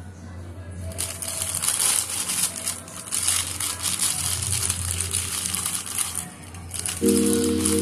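Clear plastic wrapping crinkling in irregular rustles as a wrapped bundle is handled; music starts near the end.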